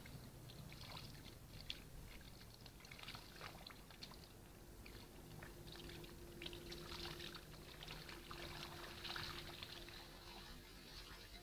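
Cast net being hauled in by hand and lifted out of the water: faint small splashes, trickling and dripping water, heard as scattered light crackles.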